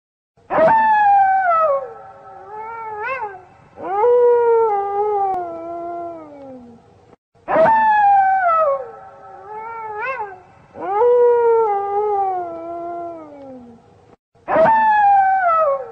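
Drawn-out animal howls that slide down in pitch, a loud one followed by a lower, longer one, repeating about every seven seconds as a looped horror sound effect.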